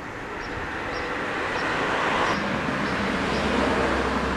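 Street traffic noise: a passing vehicle's rush swells to its loudest about two seconds in, then eases off slowly.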